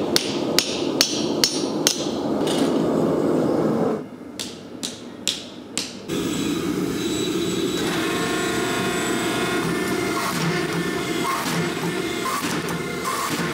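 A hand hammer striking a hot steel knife billet on an anvil, a rapid run of sharp blows over a steady background roar, then a few more blows. In the later part the blows stop and a steady hum with held tones carries on.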